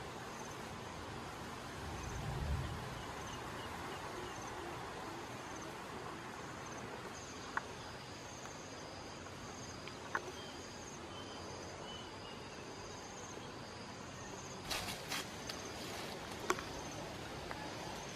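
Insects chirping in a steady, pulsing high drone over outdoor ambience, with a low thump about two seconds in and a few sharp clicks or snaps, clustered near the end.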